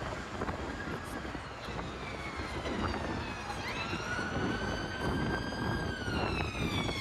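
Emergency vehicle siren wailing over steady street traffic noise. It comes in faintly about two seconds in, sweeps sharply up in pitch a couple of seconds later, then slides slowly down.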